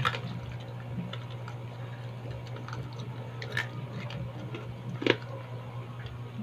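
Small clicks and crunches of crispy fried pork being eaten and pulled apart by hand, with sharper clicks about three and a half and five seconds in, over a steady low hum.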